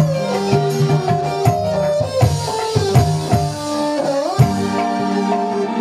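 Live dangdut band music: an electronic keyboard melody over a steady hand-drum beat.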